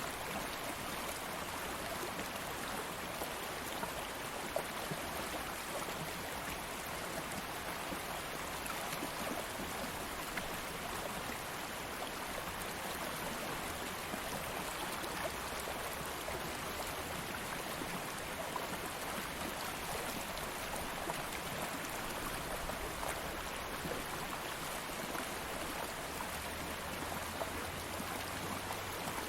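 A shallow stream of water flowing steadily, an even rushing hiss dotted with small splashes and trickles.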